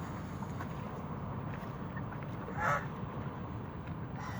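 A waterfowl gives one short honking call about two-thirds of the way through, over a steady low background rumble.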